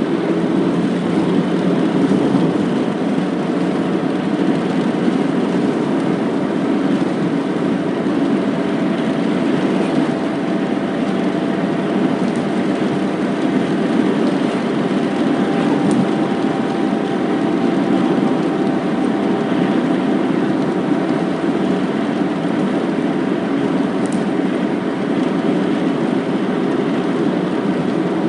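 Car driving on the road heard from inside the cabin: steady engine hum and tyre road noise, with no change in speed.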